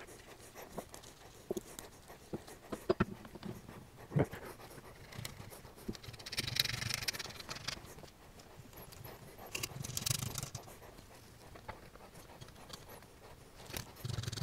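Quiet handling of steel all-thread rods being screwed into an aluminium motorcycle crankcase: a few light, scattered metallic clicks and taps, with two soft exhalations about six and ten seconds in.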